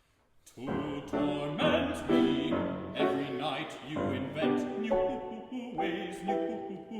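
A classical vocal ensemble singing in operatic style with piano accompaniment. It begins about half a second in after a brief hush.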